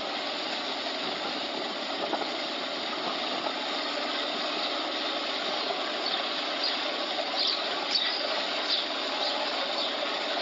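Steady engine and road noise of a vehicle driving slowly along a street, with a few short high squeaks between about seven and nine seconds in.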